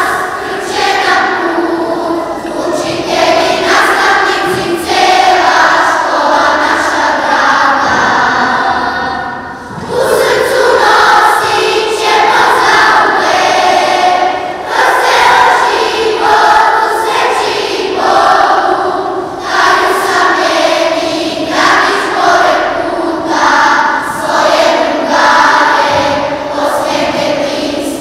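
A children's choir singing a song phrase by phrase, with a brief drop in level about nine seconds in.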